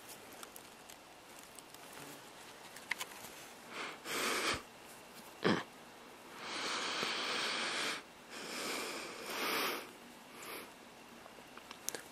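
A person breathing and sniffing close to the microphone: a few noisy breaths, the longest about a second and a half, with a short sharp click about five and a half seconds in.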